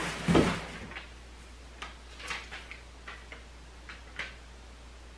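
Cardboard packaging being handled: a brief scrape of cardboard about half a second in, then scattered light clicks and ticks as the box and paper are handled.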